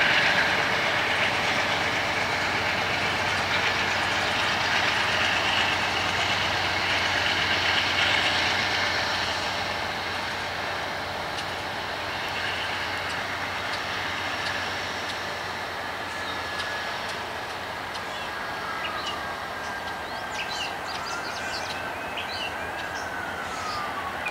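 Norfolk Southern diesel locomotives and freight cars rolling past: a steady rumble of engines and rail noise, loudest for the first several seconds and then easing off. In the second half a thin high squeal drifts up and down in pitch.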